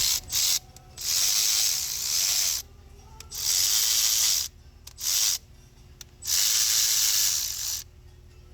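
Repeated bursts of pressurised spray hissing: four longer blasts of a second or more, with a couple of short puffs between them, each stopping sharply.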